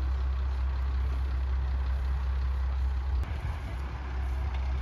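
Steady low rumble and hiss of outdoor background noise. About three seconds in, a faint click, after which the rumble turns uneven.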